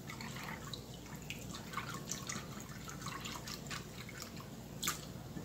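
Small wire whisk stirring a thin, milky liquid in a glass measuring cup: faint liquid sloshing with light scattered ticks of the wires against the glass, and one sharper tick a little before the end.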